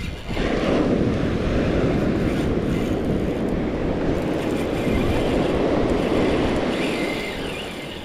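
Surf washing up the beach: a rush of water noise that sets in sharply just after the start, holds for several seconds and fades away near the end.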